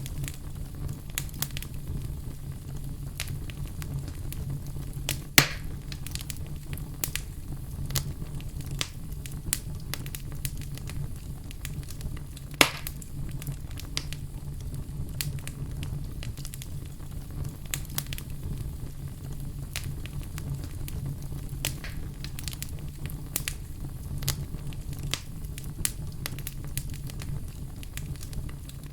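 A fire in a fireplace crackling steadily: frequent small snaps over a low rumble, with two louder pops about five and thirteen seconds in.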